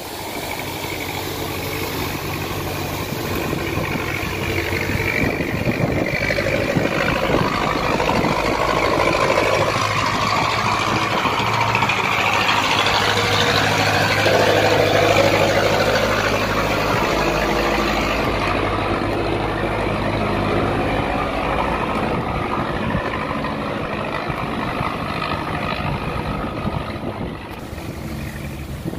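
A barge's engine running under power as it passes close by, growing louder to a peak about halfway through and then fading, over a steady hiss.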